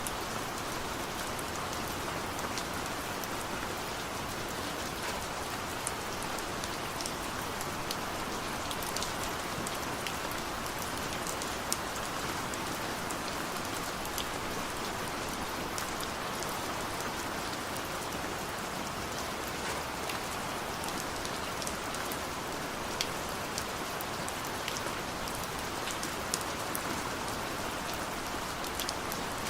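Heavy rain falling steadily, a dense hiss with many distinct drop ticks on a hard surface.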